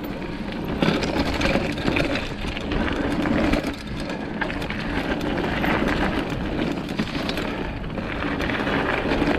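Mountain bike rolling down a rough dirt trail: a continuous rapid clatter of the bike shaking over the bumps, with the tyres crunching on the dirt.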